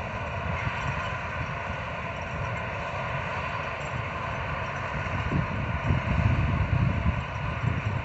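Potato-harvest farm machinery running steadily, with an uneven low rumble that swells a few seconds in.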